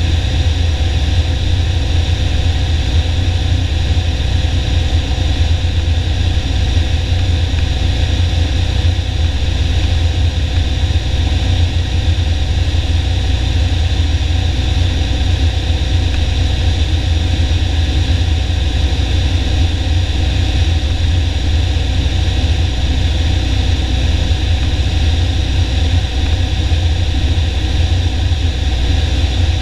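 Piper Warrior's four-cylinder piston engine and propeller droning steadily in flight, heard inside the cabin, with a constant hiss over the low hum.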